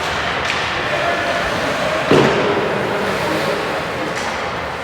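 Ice hockey game sounds in a rink: a steady hubbub of skating and play, with one sharp bang about two seconds in that echoes briefly.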